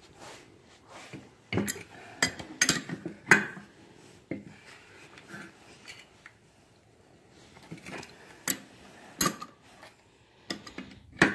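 Irregular metal clinks and knocks from a wrench and the Honda Odyssey FL250's clutch being handled while a bolt is tightened into the grease-filled clutch to build hydraulic pressure against it. The knocks come in a cluster a couple of seconds in and again near the end.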